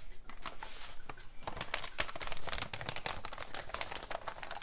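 Paper coffee bag crinkling and rustling in the hands, a run of quick crackles, as it is tipped to pour ground coffee and then folded shut.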